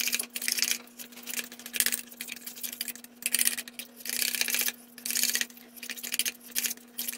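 Metal spoon stirring and scraping mayonnaise and spices around a stainless steel mixing bowl, in irregular strokes about every half second to a second. A faint steady hum runs underneath.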